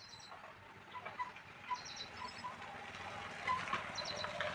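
Small birds chirping in short, quick note groups every second or two, with light knocks and clatter of hand work that grow louder near the end.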